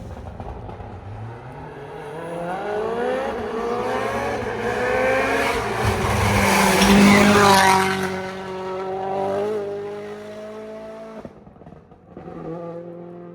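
Rally car accelerating hard past the microphone, its engine note climbing in steps as it shifts up through the gears and loudest about seven seconds in. As it goes by the pitch drops and holds, then the sound falls away sharply about eleven seconds in, and a fainter engine note follows near the end.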